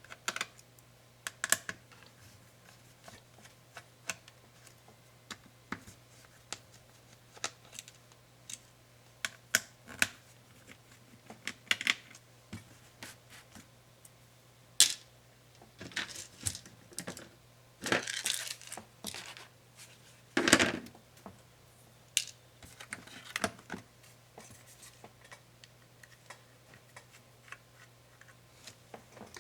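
Irregular clicks and taps of hand tools and small parts on a laptop's plastic and metal case during disassembly, with a couple of longer scraping sounds about two-thirds of the way in. A faint steady hum runs underneath.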